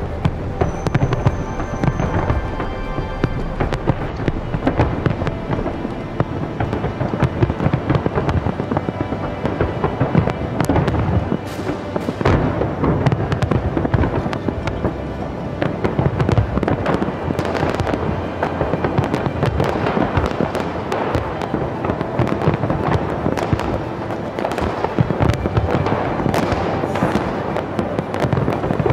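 Large aerial fireworks display: a dense, unbroken barrage of shell bursts and crackling, many bangs a second.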